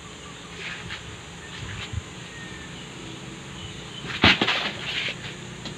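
A plastic soft-drink bottle handled over golf-cart battery cells while topping them up with water: a sharp knock about four seconds in, followed by about a second of crackly noise.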